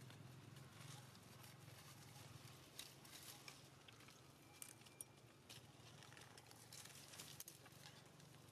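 Near silence: faint scattered crackles of dry leaf litter as monkeys move on it, over a low steady hum.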